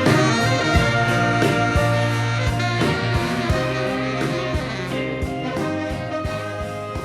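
Background music with a steady beat, slowly getting quieter.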